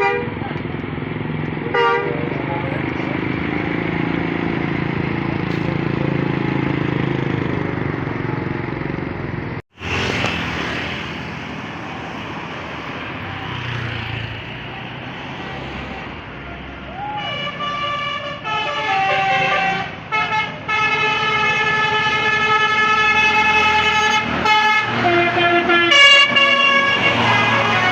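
Bus engines and traffic noise with a couple of short horn toots. About a third of the way in the sound cuts away, and later a bus's telolet basuri musical horn plays a tune of stepped notes over the running engine.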